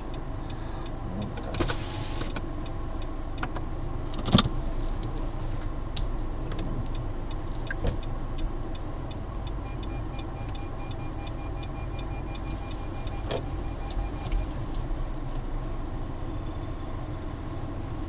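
Inside a car: a steady low rumble of the running car, with scattered clicks and knocks, the loudest about four seconds in. About ten seconds in, a rapid run of high electronic beeps goes on for about five seconds and stops.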